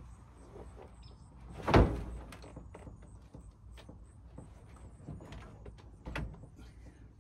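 Knocks and clatter of someone working in a pickup truck bed under a raised canopy: one sharp bang about two seconds in, a smaller knock about six seconds in, and light clicks between.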